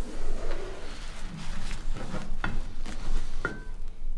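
Pages of a hardback book being leafed through: paper rustling, with a few sharp page flicks.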